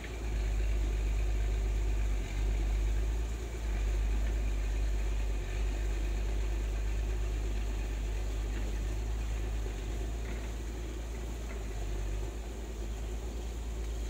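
Swollen, muddy stream rushing over and around rocks, a steady low rumble with an even rushing hiss above it.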